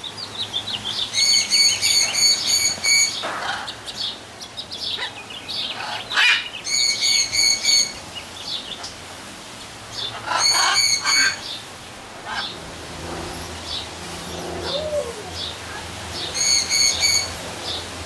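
Birds in a parrot aviary calling. Four times, a run of fast, evenly spaced high chirps lasts about a second or two, among scattered shorter calls and squawks.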